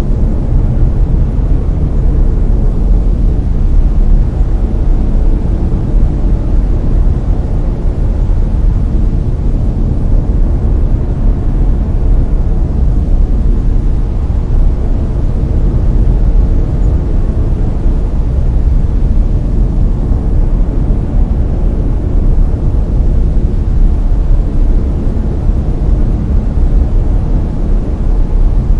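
Steady brown noise: a deep, even rumbling hiss, loudest at the bottom and fading toward the top, with no changes or events.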